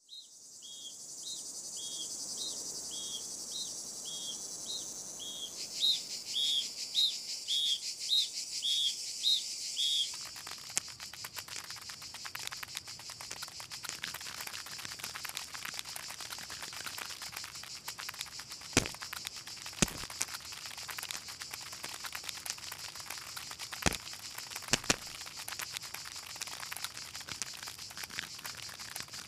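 Insect ambience. Short high chirps repeat at about one and a half a second, over a high insect hiss, and grow louder and a little quicker about six seconds in. About ten seconds in the chirps stop and a steady high insect drone carries on, broken by four sharp clicks in two pairs.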